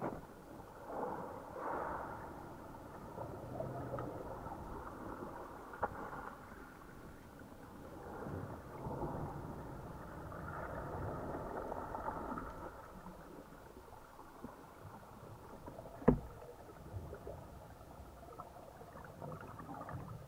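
Muffled rushing of surging sea water heard underwater, swelling and fading every second or two as waves break overhead, with a sharp knock about 16 seconds in.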